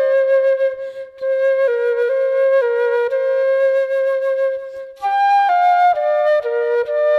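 Music: an unaccompanied flute-like melody of held notes, in short phrases that pause briefly about a second in and again about five seconds in.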